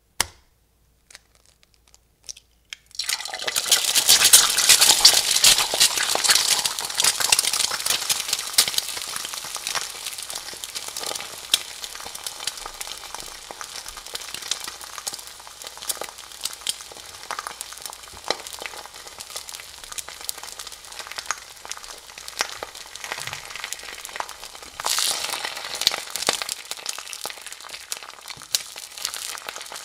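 Whole spices and dried red chillies sizzling and crackling in hot oil in an aluminium pot. The sizzle starts suddenly about three seconds in, loudest at first, then settles to a steady crackle. Near the end there is a fresh louder burst of sizzling as sliced onions go into the oil.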